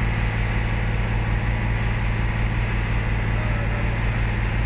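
Volvo B9R bus's diesel engine idling steadily, a constant low hum.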